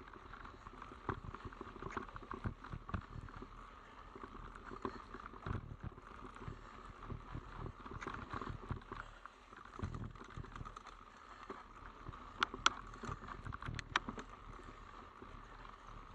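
Mountain bike rolling over a rough, technical forest trail: an uneven run of knocks and rattles from the bike, with a few sharp clicks about three quarters of the way through.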